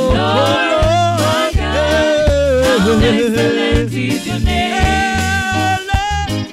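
Live gospel band playing a reggae-style song: a lead voice sings a melody with backing singers, over a steady pulsing bass line, drums and keyboard.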